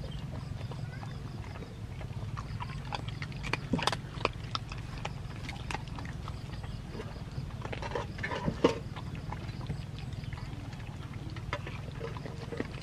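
Several puppies eating fish scraps from a woven basket: wet chewing, smacking and licking, with many sharp clicks as they crunch fish bones, busiest about four and eight seconds in. A steady low hum runs beneath.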